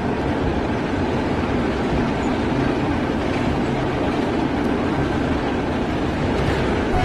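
Steady running noise of an Indian Railways WAP-7 electric locomotive at speed, a constant rumble of the locomotive and wheels on the rails heard from the cab.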